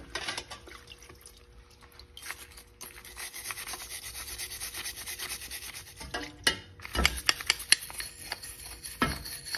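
Stiff brush scrubbing rust off a Stihl trimmer's clutch parts and housing with rapid back-and-forth strokes, a steady scratchy rasping, with a few knocks of the parts near the end.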